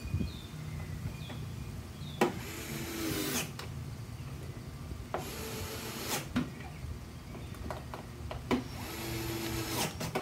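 Cordless electric screwdriver whirring in three short runs of about a second each, driving screws back into the plastic housing of an air fryer, with several sharp clicks and knocks in between.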